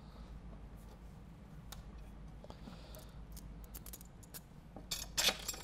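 Light clicks and scrapes of a sheet-metal loaded-round chute bracket being fitted against the frame of a Dillon XL750 reloading press, with a quick cluster of louder metallic clicks about five seconds in.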